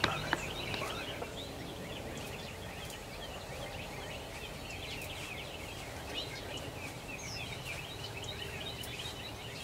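Spring field ambience: many small birds chirping throughout over a steady low background rumble.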